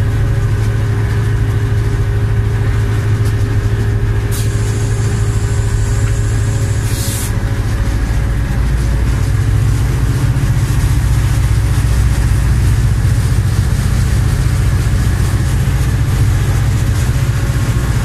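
Diesel locomotive engine running steadily under way, heard from inside the cab as a loud, deep drone. A brief hiss comes about four to seven seconds in, and the engine note deepens from about eight seconds in.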